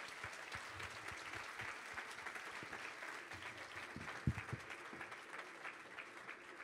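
Audience applauding: dense, steady hand-clapping, with a single loud thump about four seconds in.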